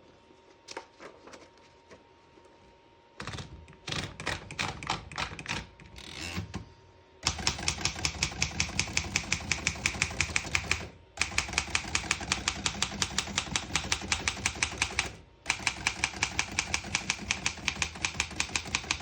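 1923 Remington Portable Model 1 typewriter: a few seconds of irregular clicks and rattles as the page is fed in, then steady fast typing, the type bars striking the platen at about three or four keystrokes a second. The typing comes in three runs with two brief pauses.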